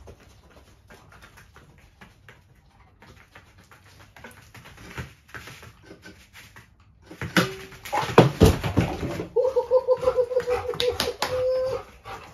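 Dog sniffing and panting softly among the search boxes, then loud knocks and scrapes as the boxes are bumped and shoved about, followed by a steady, pulsing dog whine lasting about two seconds.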